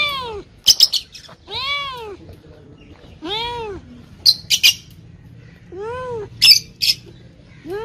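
A young tabby cat meowing over and over, four even meows each rising and falling in pitch, about one every one and a half to two seconds. Short, sharp, high chirps come between the meows.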